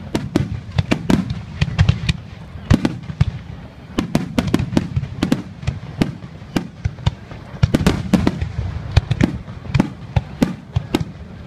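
Aerial fireworks shells bursting in a dense barrage, several sharp bangs a second over a continuous low rumble.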